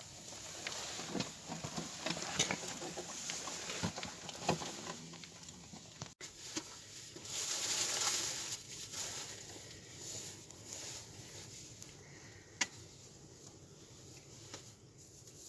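Small wood fire crackling, with scattered sharp pops over a light hiss.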